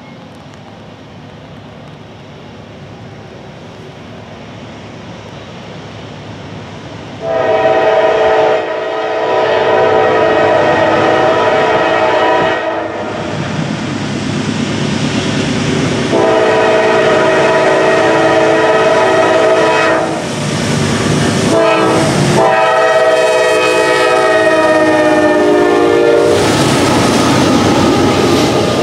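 Norfolk Southern GE D9-40CW diesel locomotive approaching with a rising rumble, then sounding its multi-note air horn in two long blasts, a short one and a final long one, the long-long-short-long pattern of a grade-crossing signal. Near the end the grain train's covered hopper cars roll past with rushing wheel clatter.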